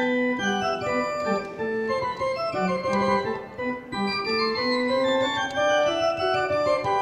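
Pipe organ playing a melody of held notes over chords.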